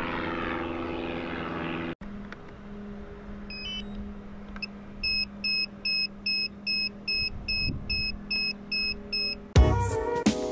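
Quadcopter drone and its controller being readied for flight: a steady low hum, then a regular run of short electronic beeps, each at two pitches at once, about three a second. Music with brass comes in abruptly near the end.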